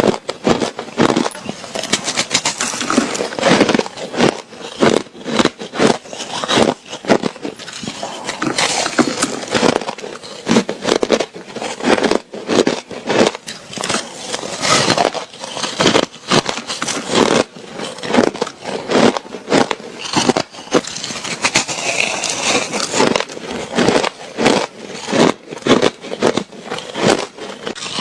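Ice being bitten and chewed, a steady run of quick, irregular crunches, several a second.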